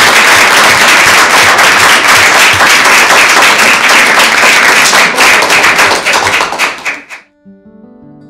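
Room of people applauding, a dense run of hand claps that cuts off abruptly about seven seconds in. Quiet plucked acoustic guitar music follows.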